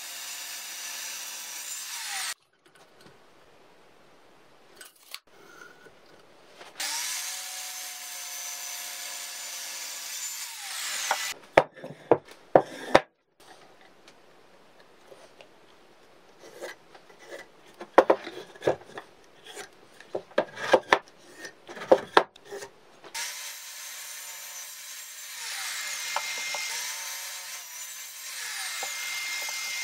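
Resanta sliding miter saw cutting through a wooden beam in three spells: briefly at the start, for about four seconds in the first half, and for the last six or seven seconds. Between the cuts come sharp clicks and knocks of handling the wood and marking it with a tape measure and pencil.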